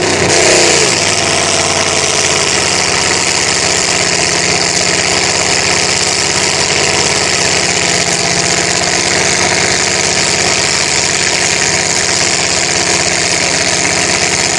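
Mud-bog truck's engine swinging briefly in revs at the start, then running steadily at a constant pitch while the truck sits in deep mud.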